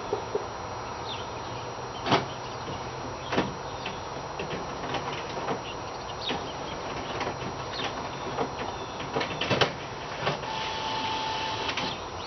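Irregular sharp bangs and knocks of unknown origin, the loudest about two seconds in and again near the ten-second mark, with lighter knocks between, over a steady low hum. A brief steady high tone sounds near the end.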